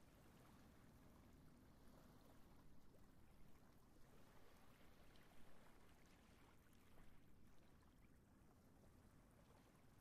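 Near silence: faint, steady wash of small waves on a sandy shore, with low rumble underneath.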